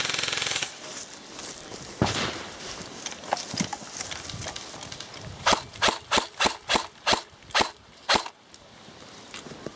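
Airsoft guns firing: a short rattling burst at the very start, a single sharp shot about two seconds in, then a string of about nine quick single shots between five and eight seconds in.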